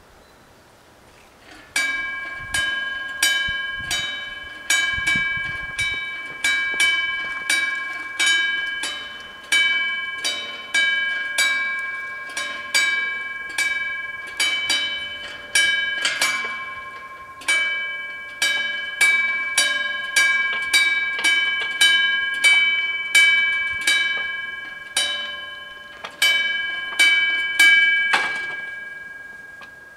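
Level-crossing warning bell ringing in rapid single strikes, about one and a half a second, each strike ringing on as it fades. It starts just under two seconds in and stops about two seconds before the end, once the barriers are down. The bell warns of an approaching train.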